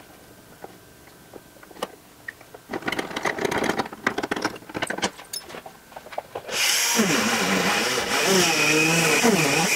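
Tools clattering as they are picked out of a plastic bin, then about six and a half seconds in a small handheld rotary grinder starts with a high whine and keeps running, its pitch wavering as it cuts into the fiberglass door skin to enlarge the lock cylinder hole.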